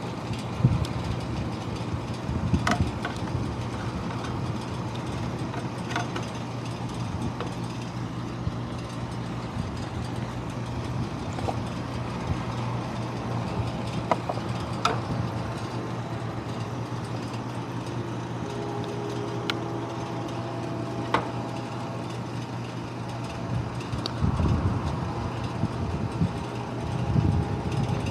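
Steady low hum of a vehicle's engine, with small scattered clicks and knocks.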